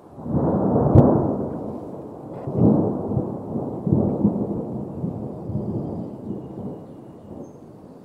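Rolling thunder: a deep rumble that swells in three waves, the first and loudest with a sharp crack about a second in, then dies away.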